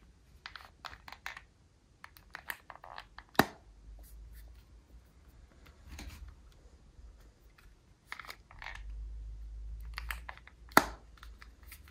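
Motorola RAZR (2020) folding phone flipped open and shut, its geared hinge and metal plates clicking and grinding in short runs, with two sharp snaps, about three and a half seconds in and near the end. The owner takes this hinge noise for the normal working of the gears, not a fault.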